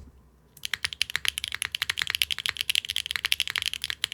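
Fast typing on a Neo60 Core mechanical keyboard with lubed Akko Cilantro linear switches on a nylon plate, GMK keycaps and no foam: a rapid run of bright, clacky keystrokes. It starts about half a second in, after a brief quiet.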